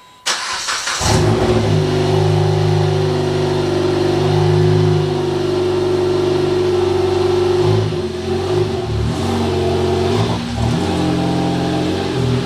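Dodge Caliber SRT-4's turbocharged four-cylinder engine running, starting abruptly just after the beginning, holding a steady note for several seconds, then shifting its revs up and down several times near the end.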